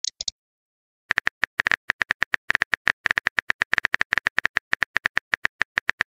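Phone keyboard typing sound effect: rapid, irregular key taps, about eight a second. It starts about a second in, after two brief clicks at the very start.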